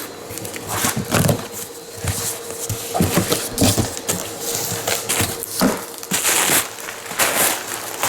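Packaging being handled and unwrapped: repeated irregular crinkling and rustling with a few light knocks as replacement parts are taken out.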